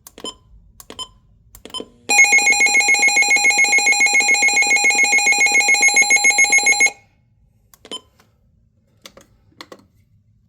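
A weather radio's alert siren sounding on test: a loud, shrill, rapidly pulsing alarm tone that starts about two seconds in and stops about five seconds later. A run of plastic button clicks comes just before it, and a few more follow.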